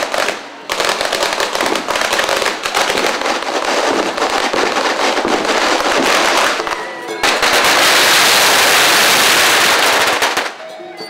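Strings of firecrackers crackling rapidly and continuously, with a brief lull about seven seconds in. Then comes a denser, unbroken stretch that cuts off suddenly about a second before the end.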